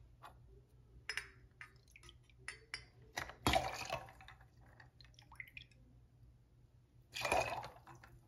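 Lemonade being measured with a stainless steel jigger and tipped into a metal cocktail shaker over ice: two short pours about four seconds apart, among light clinks and taps of the jigger and bottle.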